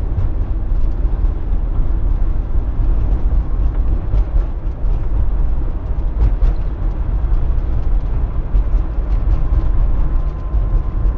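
Cabin noise of a Fiat Fiorino van on the move: steady engine and tyre rumble, with a few light knocks and rattles. A faint steady whine comes in near the end.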